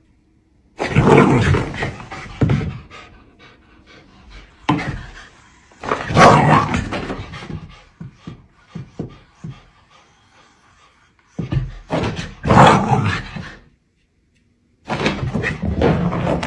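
A pomsky dog huffing and panting in four loud bursts while she plays at a self-moving toy, with a run of light thuds about eight to nine seconds in.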